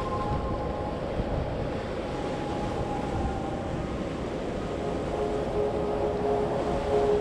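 Steady rush of wind and water as a sailing yacht moves under sail, with a few faint long-held tones over it that shift lower about five seconds in.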